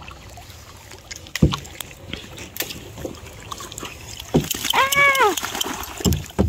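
Wooden canoe paddle knocking and sloshing in shallow swamp water among sunken logs, with a dog wading and splashing beside the canoe; several sharp knocks come a second or so apart. About halfway through, a short high call rises and falls.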